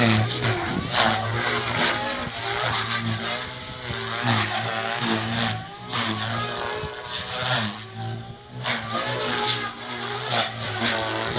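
SAB Goblin 380 electric RC helicopter lifting off and flying. The motor and drive whine rises and falls in pitch over and over, and the rotor adds a whooshing noise.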